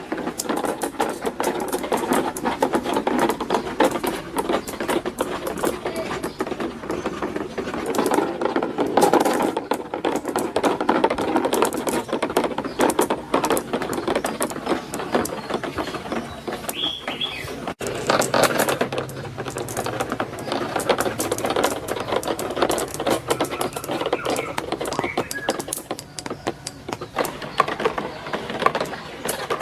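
Many marbles rolling and clattering down a plastic marble-run track, a dense continuous rattle of small clicks and clacks, with a brief break about 18 seconds in.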